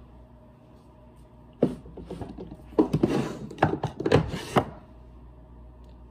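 Handling noise close to the microphone: a burst of knocks and rustling as things are picked up and moved, from about a second and a half in until near the end, with the sharpest knocks around three and four seconds in.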